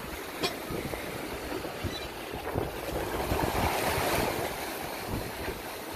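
Sailing yacht's hull pushing through choppy water, waves rushing and splashing along its side, with wind on the microphone. The rush swells to its loudest about three to four seconds in as a bigger wave foams along the hull, and there is a short click near the start.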